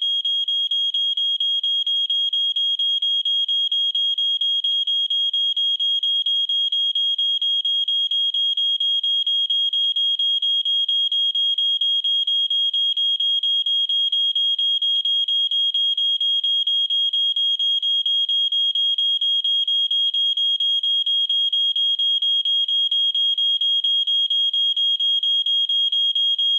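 Smoke alarm sounding: a shrill, high-pitched piezo tone beeping rapidly and evenly, several beeps a second, without pause.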